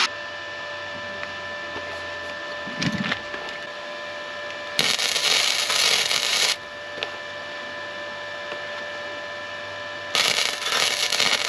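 Two bursts of electric arc welding crackle as a steel reinforcement is welded onto a trailer chassis, the first about two seconds long and the second starting near the end. A short dull knock comes about three seconds in, and faint steady high tones run underneath.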